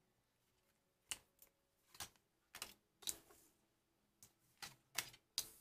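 Tarot cards being dealt from the deck and laid on a tabletop: about ten faint, sharp clicks and snaps, scattered irregularly.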